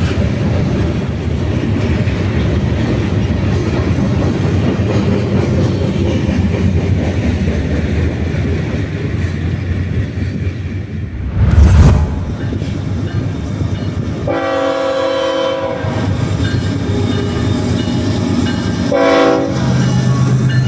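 Approaching diesel freight locomotives (EMD Geeps) running with a steady low rumble, their multi-note air horn sounding a long blast of about a second and a half some 14 s in, a short blast about 19 s in, and another starting at the very end. A loud low thump about 12 s in.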